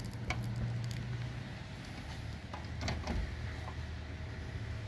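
A steady low hum, with a few faint clicks and taps of handling.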